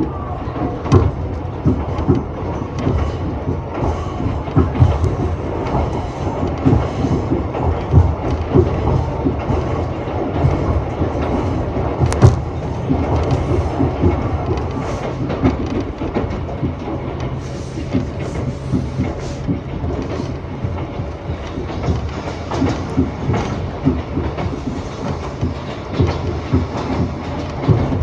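Iga Railway electric train (ex-Tokyu car) running along the line, heard from inside the car: a steady rumble of wheels on rail with irregular clacks and knocks from rail joints, and one sharp click about twelve seconds in.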